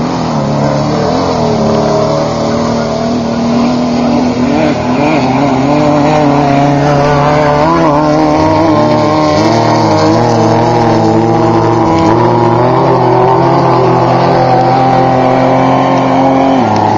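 Air-cooled Volkswagen flat-four engine of a Class 11 stock VW Bug off-road race car running loud close by, its revs wavering up and down, then dropping suddenly near the end.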